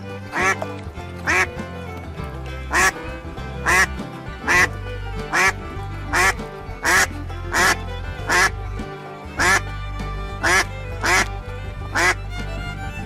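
A duck quacking again and again, short calls about once a second, over background music.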